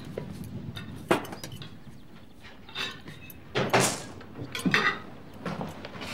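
Crockery clinking and knocking as dishes are handled on kitchen cupboard shelves: about half a dozen separate clinks and knocks, the loudest and longest about four seconds in.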